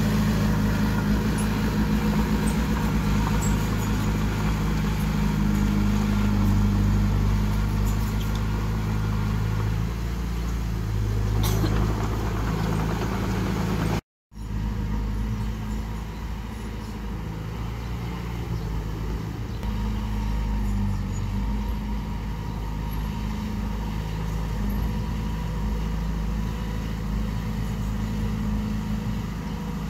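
Diesel engine of earthmoving machinery running steadily, with a brief cut to silence about fourteen seconds in.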